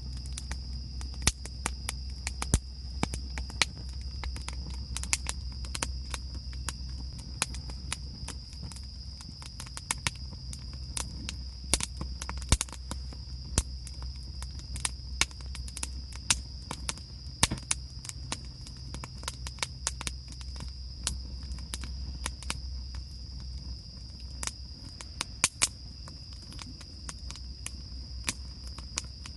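Irregular sharp crackles and clicks, several a second, over a steady high-pitched drone and a low rumble.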